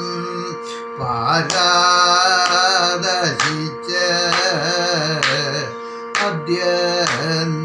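A man singing a Kathakali padam in the Carnatic style, long gliding and ornamented phrases with short breaks for breath, over a steady drone, with a few sharp taps keeping time.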